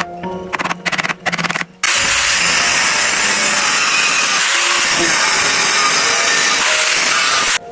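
Background music with percussion for about two seconds, then a power tool starts abruptly and runs steadily with a loud, even whir until just before the end.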